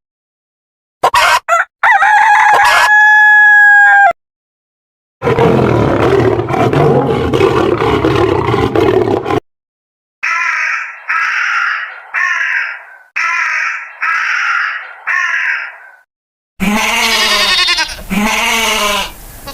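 A run of separate farm-animal clips. A rooster crows with one long held call a few seconds in, then comes a rough, noisy call, then a row of seven short repeated calls, and bleating near the end.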